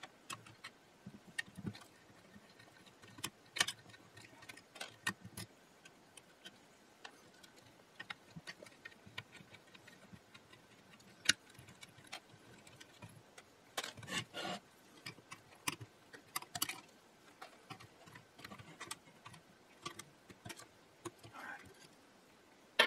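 Hand tools and small metal hardware working on a power-supply chassis during disassembly: scattered small clicks, clinks and taps, with a few louder clusters about two-thirds of the way through.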